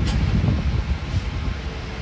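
Heavy construction machinery running with a steady low rumble, with a brief click right at the start.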